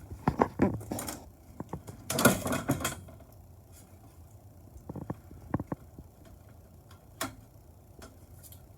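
Light clicks and knocks with two short bursts of rustling, the loudest about two seconds in, as a cord is pulled through a honeycomb shade with a stringing tool.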